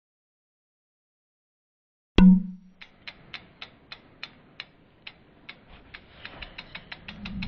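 Logo-animation sound effects: silent for about two seconds, then a single sharp hit with a short low ring, followed by a run of mechanical ticks, about four a second at first and getting faster, with a low swelling sound coming in near the end.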